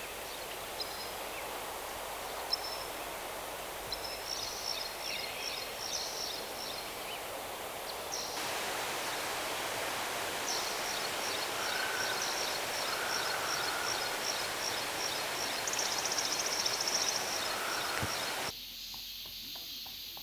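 Forest ambience: a steady hiss with high, evenly repeated chirps, faster through the middle, and a short trill near the end. The background shifts abruptly twice.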